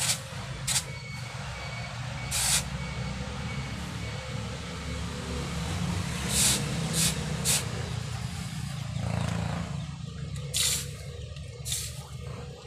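The forge's air blower runs with a steady low drone, and several short, sharp hisses come from water striking the red-hot blade and coals.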